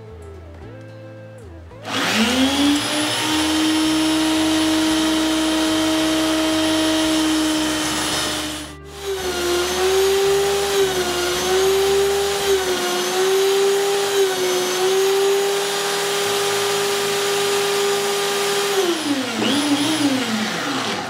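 Electric belt sander mounted belt-up as a bench sander. It switches on about two seconds in and runs with a steady whine, then cuts out briefly near the middle. It runs again at a higher pitch that dips and recovers as wood is pressed against the belt, and winds down near the end.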